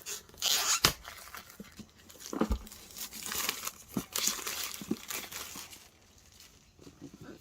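Packaging and cardboard being handled as a board game box is opened: crinkling, rustling spells with a few knocks, the loudest about a second in and about two and a half seconds in.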